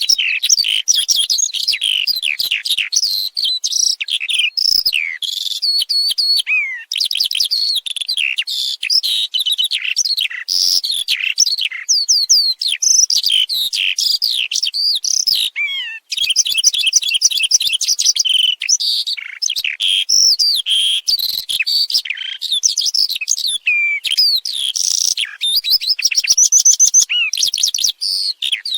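Eurasian skylark singing a long, continuous song of rapid high chirps, trills and short whistled glides, breaking off only briefly twice.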